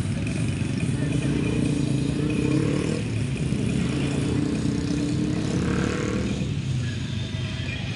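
A motor vehicle engine running, its pitch slowly rising and falling.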